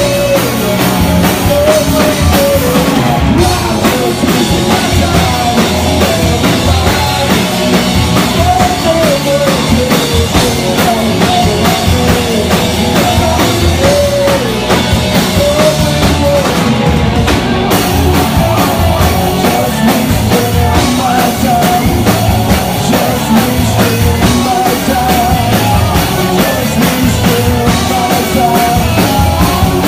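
A rock band playing live and loud: a drum kit and instruments, with a singer's wavering vocal line over them.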